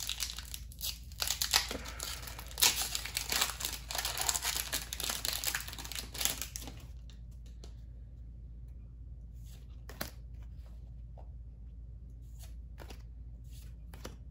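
A Dragon Ball Super Card Game booster pack's wrapper is torn open and crinkled for about seven seconds. After that come only sparse soft clicks as the cards inside are handled.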